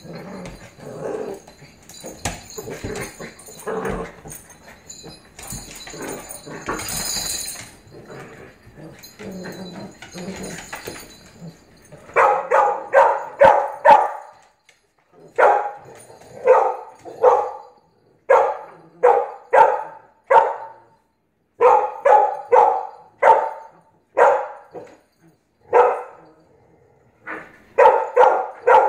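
Pit bull dogs play-wrestling on a hardwood floor: scuffling, claw clicks and low vocal noises, then from about twelve seconds in a dog barks over and over in quick runs of three to five barks with short pauses between them.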